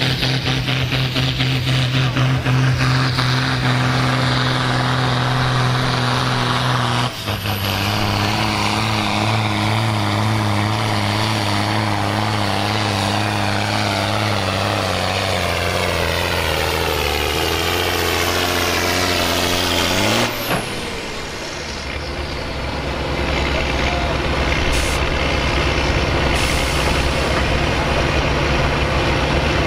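John Deere farm tractor's diesel engine at full power pulling a weight-transfer sled. After a shift about seven seconds in, the engine note sinks steadily as the sled's load drags the revs down. About twenty seconds in, the pull ends abruptly and the engine settles to a steady lower idle.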